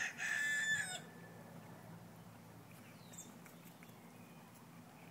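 A rooster crowing: the end of a long crow that cuts off about a second in, followed by faint steady background.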